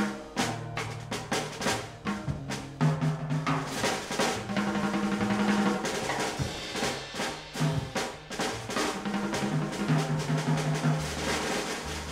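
Drum kit to the fore in a Brazilian jazz quartet recording: busy snare rolls, rimshots and bass drum, with low held notes underneath.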